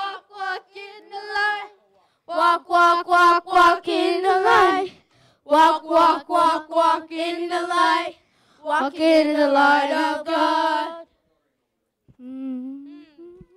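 Children's and women's voices singing a repeating gospel chorus without accompaniment, in phrases of held notes with short silent gaps between them. The singing stops shortly before the end, and one voice follows briefly.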